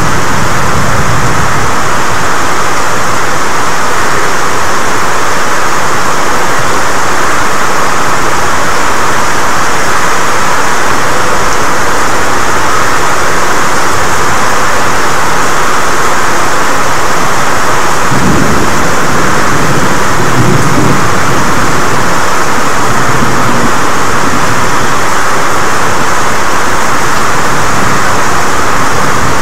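Heavy rain falling steadily and loudly, with a low rumble of thunder a little past halfway through.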